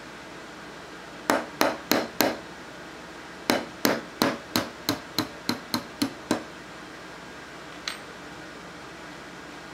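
Small hammer tapping a brass punch to drive the hammer pin out of a rifle receiver: four taps, a short pause, then about ten quicker, evenly spaced taps. A faint click follows.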